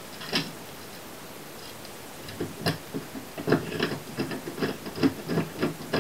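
Small plastic-and-metal clicks and light knocks as a wired wall light switch is handled and pushed into its electrical box: one click near the start, then from about halfway a run of irregular clicks.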